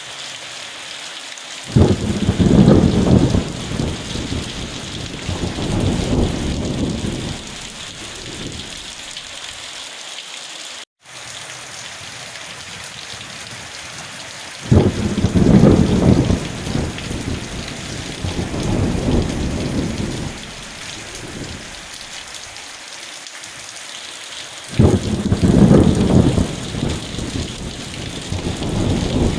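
Steady rain hissing, with three rolls of thunder that each start with a sudden crack and rumble away over several seconds, about two, fifteen and twenty-five seconds in. The sound briefly cuts out to silence about eleven seconds in.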